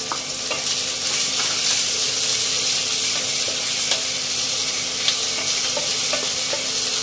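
Finely chopped onion frying in hot oil with ginger, green chilli and spices in a nonstick pan: a steady sizzle, with a spatula stirring and scraping the pan in short light clicks.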